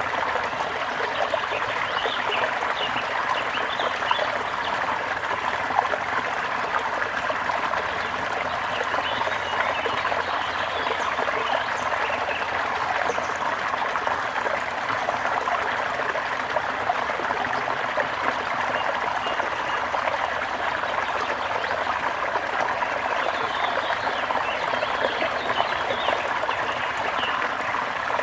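A brook running and trickling steadily, with short faint bird calls at times over the water.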